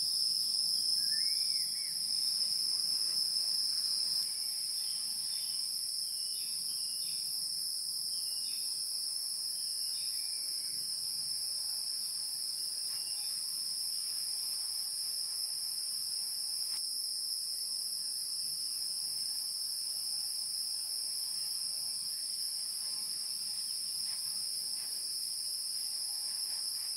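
A steady, high-pitched insect chorus, with a few short bird chirps in the first half.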